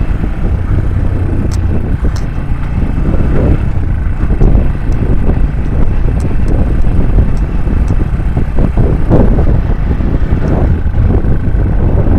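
Motorcycle running while being ridden, its engine rising and falling under heavy wind rumble on the microphone.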